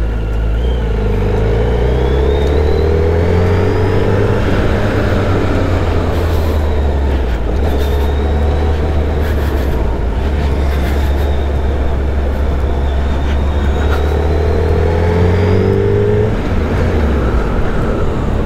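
Motorcycle engine running under way, heard from the rider's own bike over a steady low rumble. Its pitch climbs twice, over the first few seconds and again near the end.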